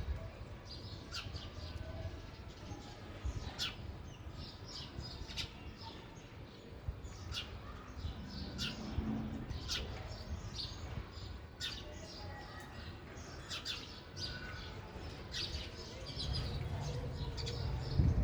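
Sparrows chirping: short, high chirps repeated at irregular intervals.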